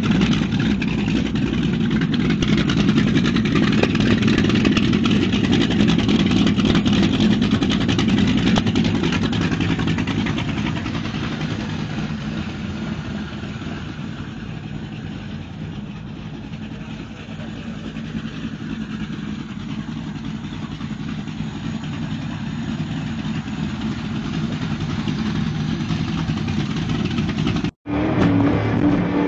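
The engines of a 1300 hp Cigarette racing boat running steadily with the boat tied up at the dock. The sound eases off after about ten seconds and builds again later. Near the end it breaks off for an instant and comes back with a different, steadier note as the boat runs underway.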